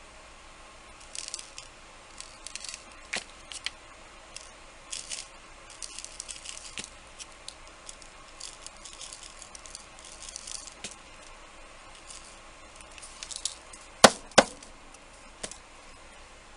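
Small hand-handling noises at a craft table: light scratching and rustling with scattered small clicks, then two sharp knocks close together near the end, the loudest sounds.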